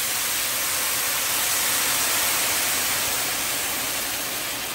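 Chicken broth pouring in a steady stream from a pitcher into a wide pan of toasted rice, splashing as the liquid fills the pan; the sound eases off near the end.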